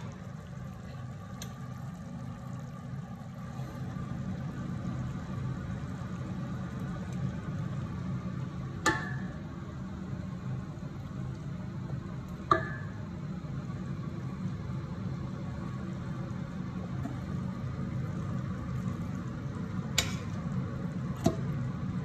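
Four sharp metallic clinks on a stainless steel pot as meat on the bone is handled and a spoon works through it. The first two ring briefly. Under them runs a steady low hum.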